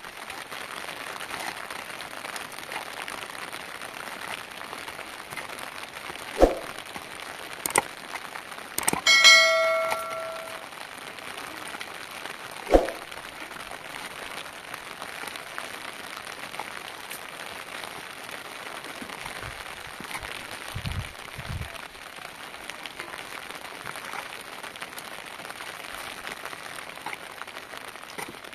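Steady rain, with a few sharp knocks and one loud clang of something metal about nine seconds in that rings for about a second and a half.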